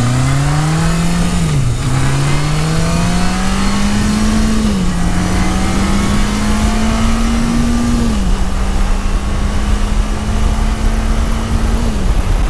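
1980 Yamaha XS1100 Special's 1100cc inline-four engine accelerating through the gears, heard from the rider's seat with wind rush. The engine note climbs, then drops at each of four upshifts, rising more slowly in each higher gear.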